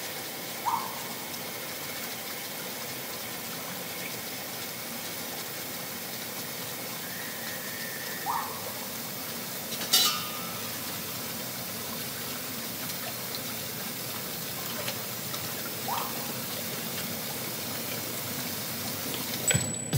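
A steady, even rushing hiss like running water, with a few short, faint chirps and one sharp click about ten seconds in.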